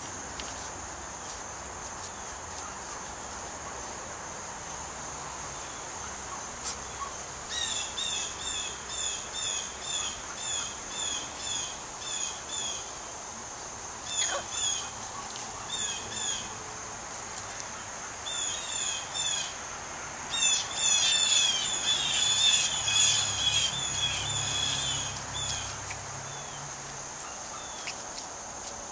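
A bird calling in runs of short, high, hooked notes, about two a second, with pauses between the runs. Under it runs a steady high insect buzz.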